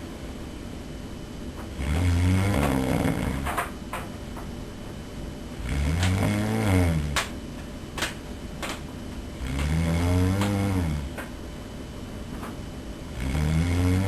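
A man snoring loud in his sleep: one long pitched snore, rising and then falling, about every four seconds, four in all. A few short sharp clicks come in the pauses after the first two snores.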